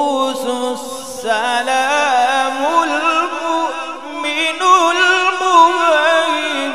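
A man's voice reciting the Quran in the melodic tajweed style, drawing out long ornamented notes that glide up and down in pitch. A short break about a second in, then one long unbroken melodic phrase.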